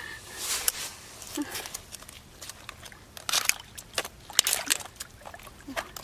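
Shallow seawater in a tide puddle splashing and sloshing in a series of short bursts as long metal tongs grip a struggling crab.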